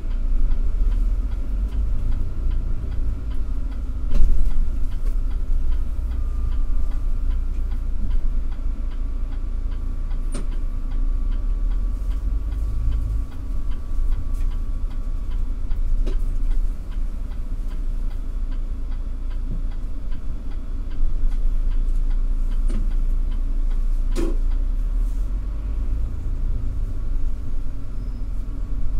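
Steady low rumble of a city bus's engine and tyres heard from inside while it drives, with a faint steady whine and faint regular ticking. A few sharp knocks and rattles sound over it.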